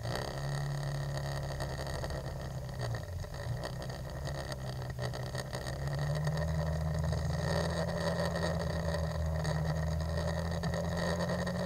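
Scooter engine running under way in traffic, its note dipping about three seconds in and then climbing to a higher steady note about six seconds in as it speeds up. The hiss of tyres on the wet road runs underneath.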